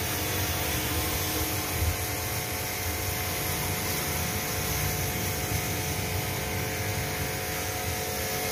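Pressure washer running steadily, its pump motor humming while the jet of water sprays onto a car.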